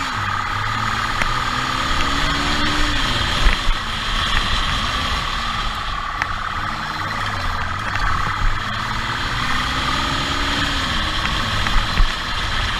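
Motorcycle engine at speed, its revs climbing and easing off in turn, under a steady high tone and road noise. Two low thumps, about three and a half seconds in and near the end.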